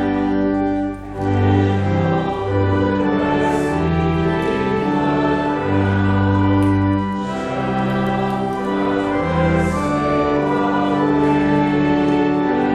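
Church organ playing a slow hymn in held chords that change about once a second, with singing voices blended in.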